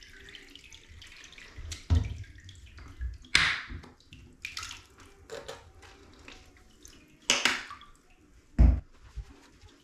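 Water splashing and sloshing in a bathtub around a puppy being shampooed, in a series of short sudden splashes, with a couple of dull knocks among them.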